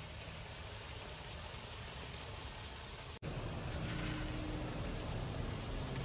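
Food sizzling in a pan, a steady hiss, broken by a brief dropout about three seconds in.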